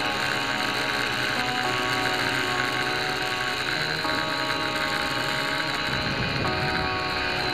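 Background music: an electronic track with held chords that change to new ones every couple of seconds.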